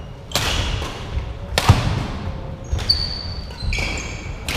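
Badminton doubles rally on a wooden court: sharp racket strikes on the shuttlecock and player footfalls, the loudest strike about a second and a half in, each with a short hall echo. From a little before halfway on, court shoes squeak on the floor.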